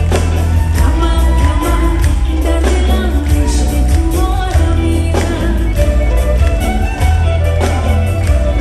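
A live band playing Afghan pop music loudly through a concert PA, with a heavy bass line and a steady beat, and a woman singing into a microphone.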